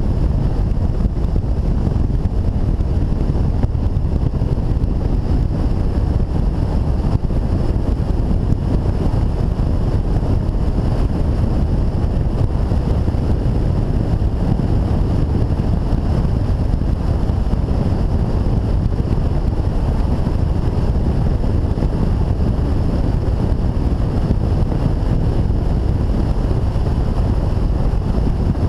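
Steady wind rush over the microphone of a camera on a BMW motorcycle riding at highway speed, mixed with the bike's engine and tyre noise.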